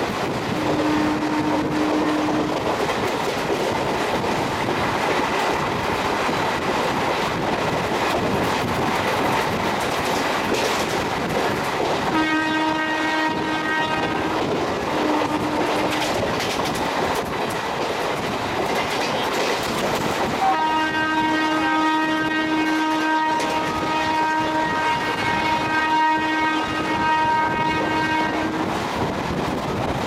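Express train running at speed, with steady wheel-on-rail noise and clickety-clack, while the WAP-4E electric locomotive's horn sounds in repeated blasts: a short one near the start, two around the middle, and two long, almost back-to-back blasts in the last third.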